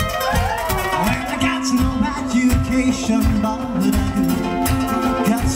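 Live rock and roll band playing a passage without lyrics: several ukuleles strumming chords over a bass line and a steady beat.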